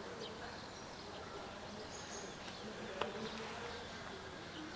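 Faint, wavering buzzing over quiet street ambience, with a single sharp click about three seconds in.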